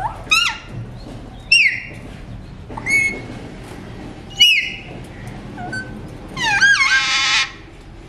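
Alexandrine parakeet calling: about five short, sharp whistled calls that swoop up and down in pitch, then a longer, harsher call lasting about a second near the end.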